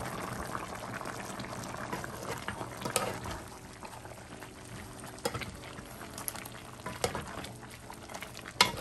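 Brown stew turkey necks bubbling at a boil in a large pot, a steady crackling simmer. A metal spoon stirring the stew knocks against the pot a few times, loudest near the end.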